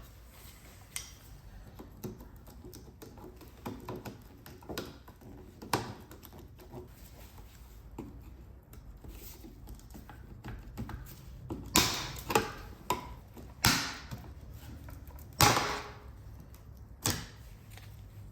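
Trim being pried off a Jeep Grand Cherokee door: scattered small clicks and taps, then about five louder sharp clicks and snaps in the second half as the retaining clips let go.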